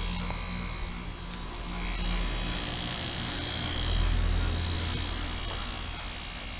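Outdoor heat pump condensing units running with a steady low compressor hum and buzz, plus fan noise. The sound swells a little about two seconds in and again around four seconds.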